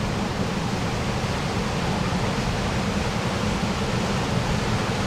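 Waterfall rushing: a steady, even noise of falling water, heaviest in the low end.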